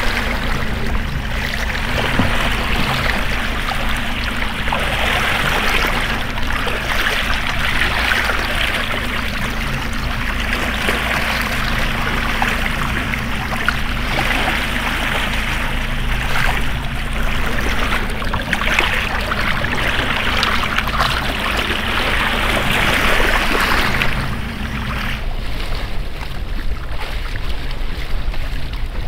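Boat engine running steadily under loud rushing and splashing water along the hull. The rush and the engine tone ease off about 25 seconds in.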